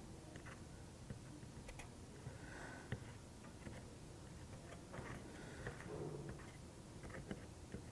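Faint, scattered small clicks and taps from handling the kit's laser-cut parts and the glue bottle during gluing.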